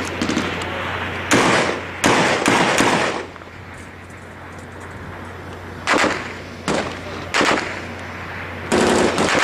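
Bursts of gunfire in a firefight, each tailing off in echoes: two loud bursts about a second and two seconds in, three separate cracks a little past the middle, and another dense burst near the end.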